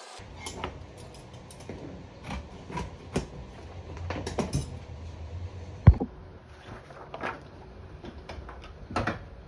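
Handling noise of cut black panels and a pair of scissors on a cutting mat: scattered taps and clicks, with one sharp knock about six seconds in, over a low steady hum.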